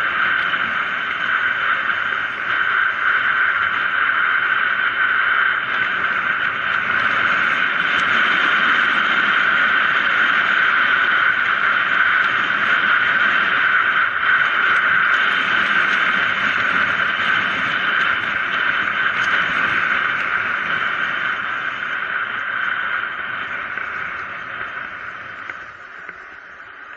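Steady rush of wind and tyre noise on the microphone of a camera riding on a mountain bike descending a paved road at speed, fading over the last few seconds.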